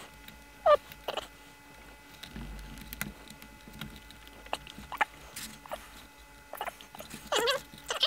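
Control knobs of a 1960s Panasonic transistor radio being pushed and twisted onto their shafts by hand. Short squeaks and clicks come in a few small clusters, the loudest about a second in and another near the end.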